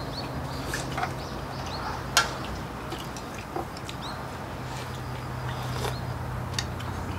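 Eating sounds at a table: scattered sharp clicks of chopsticks and dishes, the loudest about two seconds in, with faint short bird chirps and a low steady hum.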